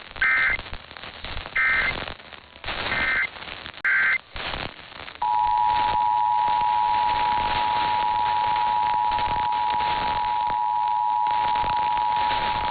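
EAS/SAME end-of-message data bursts: four short, buzzy digital squawks over radio static. About five seconds in, the steady two-tone EAS attention signal starts and holds, announcing the next alert.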